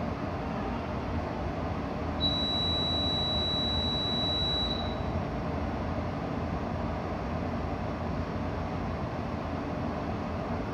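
Steady rumbling background noise with a hiss, and a single high, clear tone held for about two and a half seconds starting about two seconds in.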